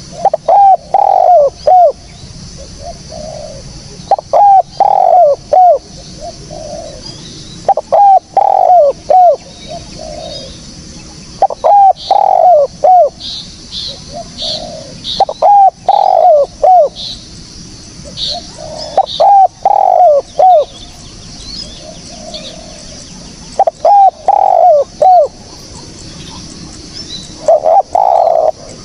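Spotted dove (tekukur) cooing: a phrase of three or four short, arching hoots, repeated about every four seconds, eight times over.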